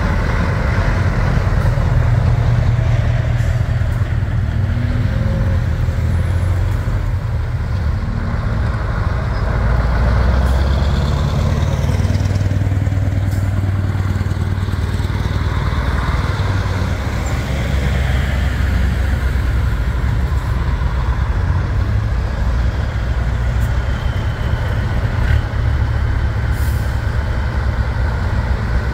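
Diesel engines of vintage trucks running and driving slowly past, their low note swelling and easing off as each one moves, with a hiss of air brakes.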